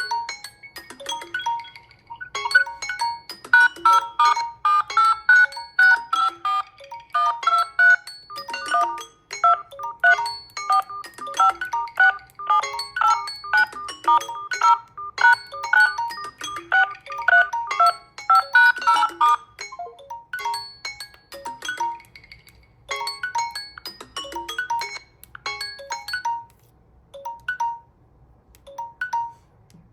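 A Samsung Galaxy phone playing one of its built-in tones: a melody of short, quick notes that thins after about twenty seconds into a slow, sparse run of single notes.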